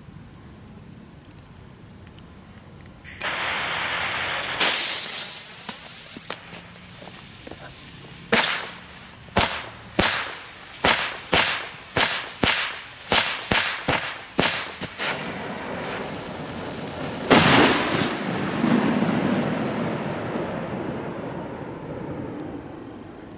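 Tric Track Blue firecracker (category F4) going off: a hiss for about a second and a half, a loud bang, then a chain of about fifteen sharp cracks at roughly two a second, ending in one much louder final blast that fades into a hiss.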